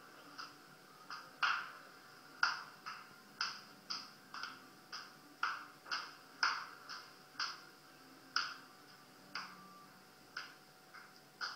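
Dance music's percussive beat, sharp hits about twice a second with a stronger hit roughly every second, sounding thin with no low end as it plays back through a small speaker.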